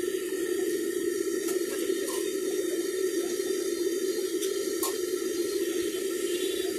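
Kachoris deep-frying in a large kadai of hot oil: a steady, even sizzle and bubbling, with a couple of faint clicks.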